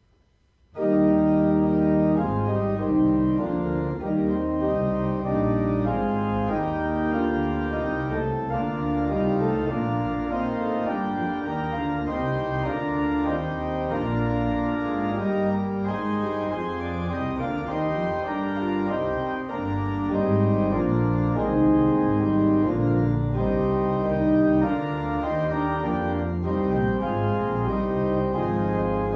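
Church organ comes in suddenly about a second in and plays sustained chords.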